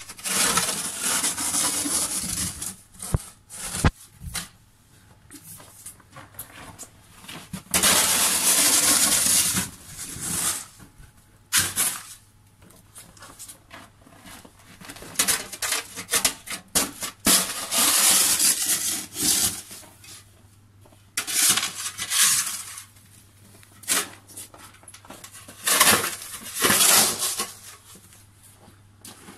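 Snow shovel scraping through snow in repeated pushes, each lasting a second or two, about ten in all, with quieter pauses between strokes.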